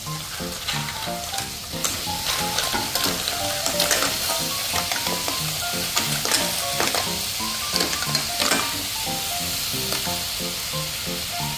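Hard-shelled clams clattering into a hot steel wok, which sizzles steadily, with a series of sharp clicks as the shells land and knock together.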